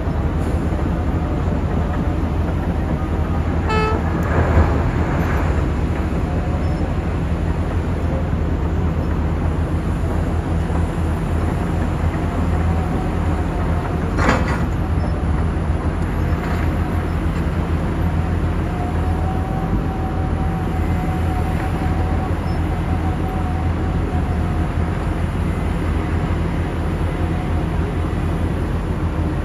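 Heavy diesel engines of mining machinery running steadily with a low drone: a crawler dozer pushing coal and a Cat 6020 hydraulic mining shovel loading a haul truck. A short horn toot comes about four seconds in, and a single sharp clank about halfway through.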